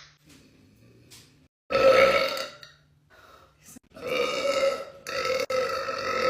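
A young woman burping: a short burp about two seconds in, then a long, drawn-out burp starting about four seconds in.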